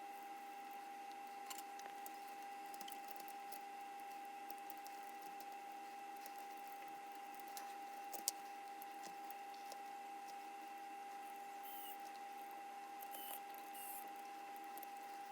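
Small plastic parts being handled: scattered light clicks, one sharper click about eight seconds in, and a few brief scratchy rustles near the end, over a steady faint high hum.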